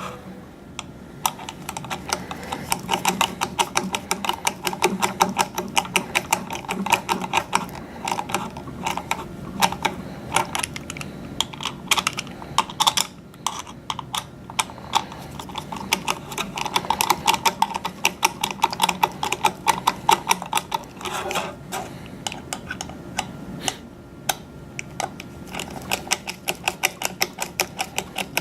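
Rapid, irregular clicking of a screwdriver turning screws into the plastic radio hood of a Cambium ePMP Force 100, several clicks a second.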